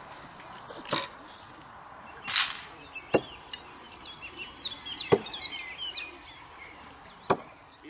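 Thrown knives striking wooden target rounds, about five sharp thunks a second or two apart.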